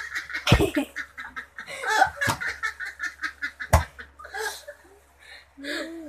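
A man and a woman laughing hard in rapid, repeated pulses, with two sharp knocks, about half a second in and again near four seconds in; the laughter trails off into short bursts near the end.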